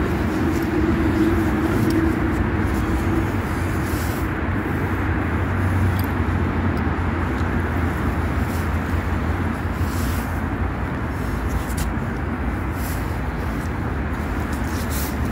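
Steady noise of busy main-road traffic passing continuously, a constant rumbling wash with no single vehicle standing out.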